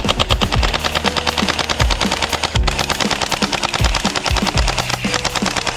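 Toy AK47 blaster firing on full auto: a rapid, even stream of shots with a brief break about halfway. Background music with deep bass hits plays under it.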